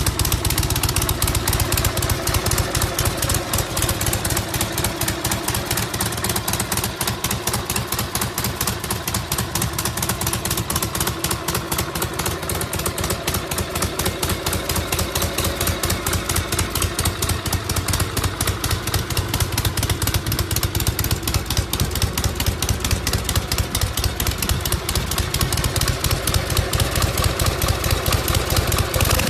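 Harley-Davidson V-twin motorcycle engine idling steadily, an even, rapid train of exhaust pulses with no revving.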